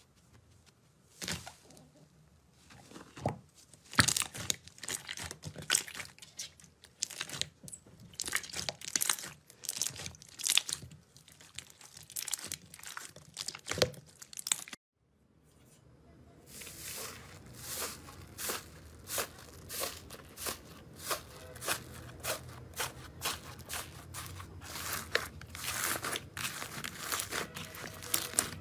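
Hands squeezing and kneading slime in a bowl, giving a dense run of crackles and pops as air pockets burst. There is a brief silence about halfway through. After it, the squeezing goes in a steadier rhythm of crackling pulses, roughly one or two a second.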